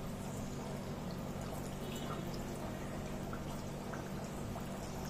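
Mathri dough pieces frying in hot refined oil over a low gas flame: a steady sizzle with scattered small pops.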